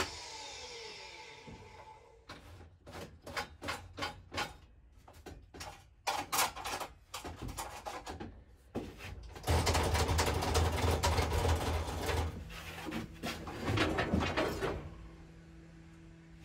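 Jobsite table saw spinning down, its pitch falling, then a series of separate wooden knocks and clatters as cut strips are handled, with a louder stretch of clattering and scraping about halfway through.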